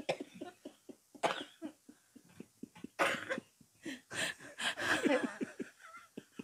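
A man laughing hard in short, breathy, cough-like bursts.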